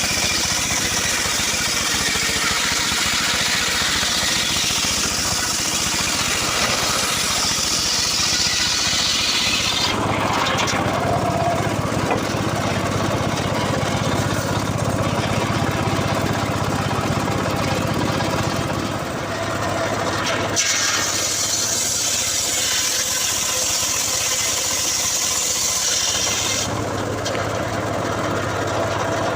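Engine-driven homemade circular saw cutting wood, with a harsh, noisy cutting sound during the first ten seconds and again past the twenty-second mark. Between the cuts the engine runs on with a steady drone.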